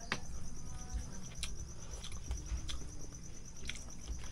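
Night insects chirping in a fast, steady, high-pitched trill, with a few sharp clicks scattered through it.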